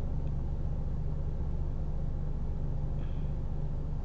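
Steady low hum with a light hiss: constant background room noise, with no distinct sound event standing out.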